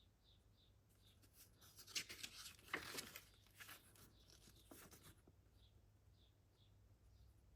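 Crinkling rustles and sharp clicks of a CD case and its plastic packaging being handled, lasting about three seconds around the middle and otherwise near silence.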